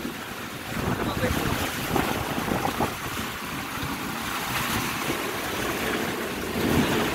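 Storm wind gusting hard against the microphone, with rain driving down in a dense hiss.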